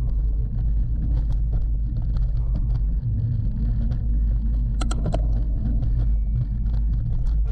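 Mountain bike ridden along a dirt trail, heard through a GoPro: a steady low rumble of wind and tyres with scattered clicks and rattles from the bike, and a cluster of sharper knocks about five seconds in.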